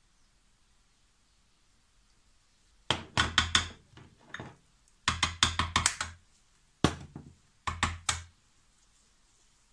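A metal spoon tapped quickly against the rim of a plastic food processor bowl, in several short bursts of sharp clicks starting about three seconds in.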